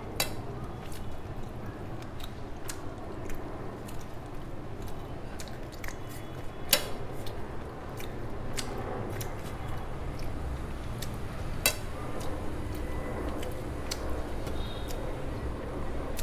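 Close-up eating sounds: chewing and wet mouth sounds as a woman eats rice and curry with her fingers, with fingers squishing through the food on a steel plate. Scattered sharp clicks run through it, the loudest about 7 s in and again near 12 s, over a steady low hum.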